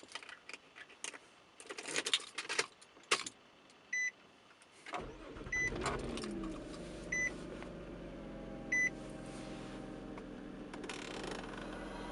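Keys jangling, then a car's chime beeping four times about a second and a half apart while a 2005 Nissan Altima's 3.5-litre V6 is started with a short crank and settles into a steady idle.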